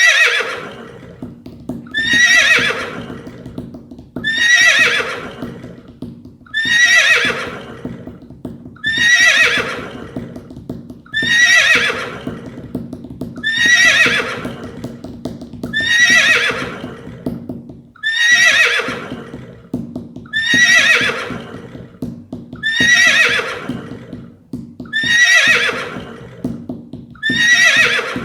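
A horse whinnying, the same neigh repeated about thirteen times, roughly every two and a quarter seconds. Each neigh starts high and falls in pitch.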